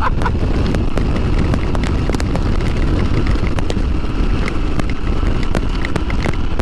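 Motorcycle riding noise on a helmet or body-mounted camera microphone: steady wind roar and engine rumble, dotted with scattered sharp ticks.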